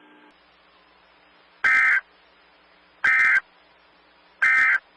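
Emergency Alert System (SAME) end-of-message signal: three short bursts of warbling digital data tones, evenly spaced about a second and a half apart, marking the end of the weather alert broadcast.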